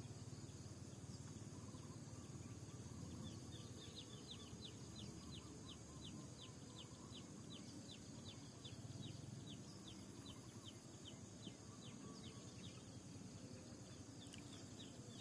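A bird calling in a long run of short, high chirps, each falling in pitch, about three a second, with a break near the end before it starts again. Under it is a low steady rumble of outdoor noise.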